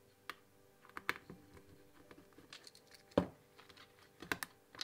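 Light clicks and taps of small plastic parts being handled and pressed against a plastic RC car chassis, with a screwdriver worked on it: scattered, irregular clicks, the loudest about three seconds in and two more near the end.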